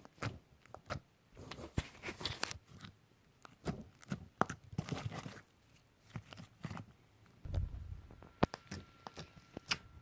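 Clear-glue slime being squeezed and stretched by hand, giving irregular sticky clicks, pops and crackles, with a soft low thump near the end.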